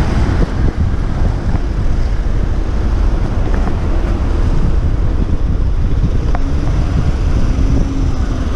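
Steady wind rumble on the microphone of a handlebar-mounted action camera as a bicycle rides through city traffic, with road noise underneath.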